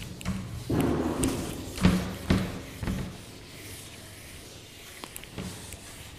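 Handheld duster wiping a whiteboard: a rubbing swish about a second in, then three sharp knocks in quick succession, after which only a low steady hum is left.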